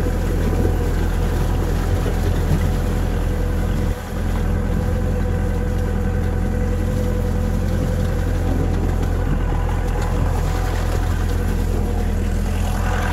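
Engine of a vehicle running steadily as it carries riders along a muddy track, a low, even drone with a steady hum above it. It briefly dips about four seconds in.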